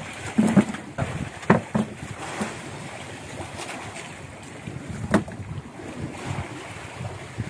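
Wind and sea washing around an outrigger fishing boat, with wind rumbling on the microphone. A handful of sharp knocks, several in the first two seconds and one about five seconds in, come from handling fish and gear on the deck.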